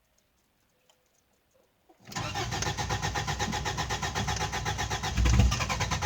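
Starter cranking a Subaru EA82 flat-four engine, starting suddenly about two seconds in with fast, even pulses, as the engine turns over without catching in a no-start. A louder low thump comes about five seconds in.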